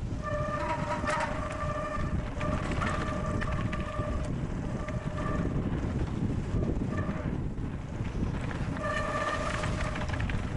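Mountain bike rolling fast downhill over a wooden boardwalk and onto gravel: wind buffeting the microphone and a steady tyre rumble with small knocks. A high, steady whine from the bike comes in almost at once, stops about halfway through and returns near the end.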